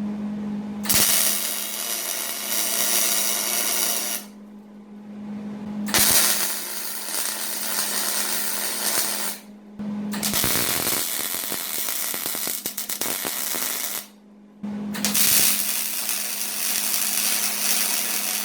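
Arc welding on steel frame pieces: four runs of about three to four seconds each of steady crackling arc noise with short pauses between them, over a constant hum from the welder.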